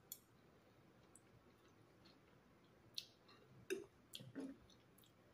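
Quiet eating sounds: a few small clicks and wet mouth noises of chewing, with most of them bunched together around three and a half to four and a half seconds in.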